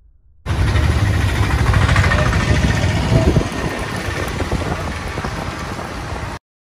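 Wind rushing over the microphone and engine noise from a moving vehicle. It starts suddenly about half a second in, is loudest with a heavy rumble in the first few seconds, and cuts off abruptly near the end.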